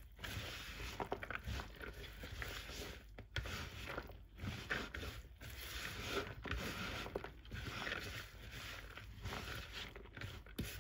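A spoon stirring and turning a moist bulgur salad in a large bowl: soft, uneven scraping and squishing strokes, about one to two a second, as the grains and chopped vegetables are tossed together.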